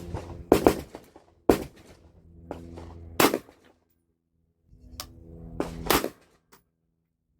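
AR-15 rifle parts being handled: about four sharp metallic clacks, two of them led by a short scraping slide, as of an action being worked and snapping shut.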